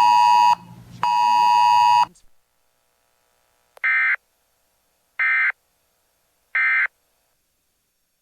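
Weather radio giving two long, loud electronic beeps over the tail of the broadcast voice. About four seconds in come three short, identical warbling data bursts about a second apart: the EAS/SAME end-of-message tones that mark the close of an NWS alert.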